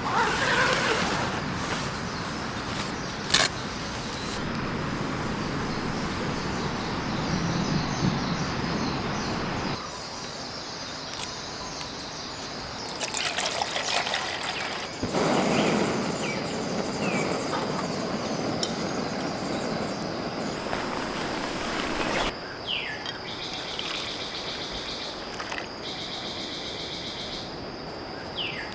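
Outdoor morning ambience in several cuts: a steady rush like running water, a steady high insect hum, and a single sharp click a few seconds in. Birds chirp in short falling calls near the end.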